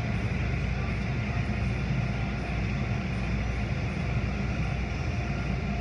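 Automatic tunnel car wash at work: a tall rotating brush scrubbing a car under water spray, a steady low rumble with a constant hiss over it.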